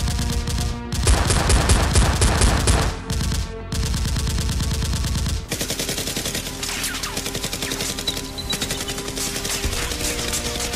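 Rapid automatic gunfire sound effects over background music. The firing is heaviest for the first five seconds or so, then goes on in lighter, quicker bursts.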